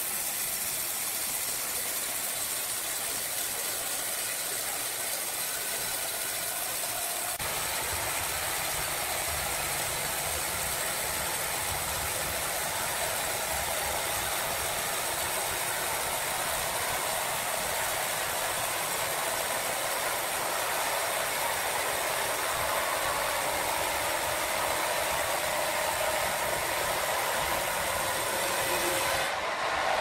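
Sawmill machinery running steadily with a loud hissing mechanical noise; a deeper rumble joins about seven seconds in.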